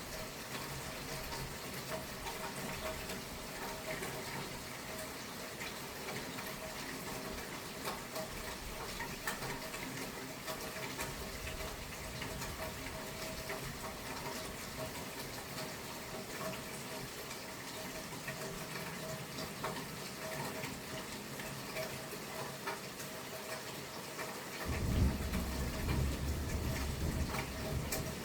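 Steady rain falling, with a low rumble of thunder rising about three-quarters of the way through and lasting a few seconds.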